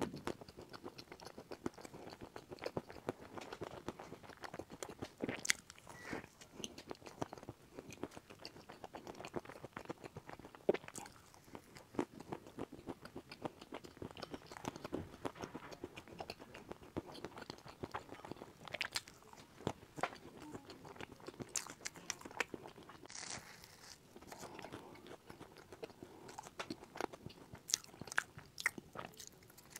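Close-miked biting and chewing of a chocolate crispy cake with a cream filling: irregular crisp crunches and clicks over continuous soft, wet chewing.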